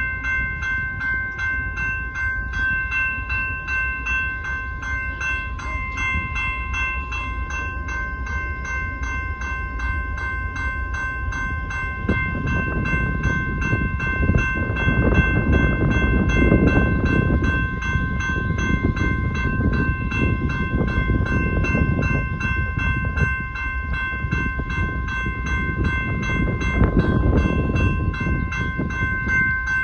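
Railroad crossing bell ringing steadily and rapidly over the low rumble of a BNSF rock train's freight cars rolling past. The rumble swells louder about halfway through and again near the end.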